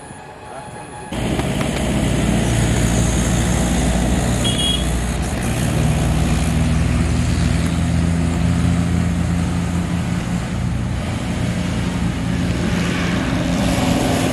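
An engine running steadily with a low hum and rough noise, cutting in abruptly about a second in.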